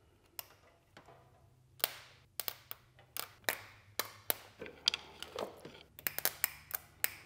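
Irregular light taps, clicks and knocks of hands and tools working on a motorcycle engine, over a faint low hum.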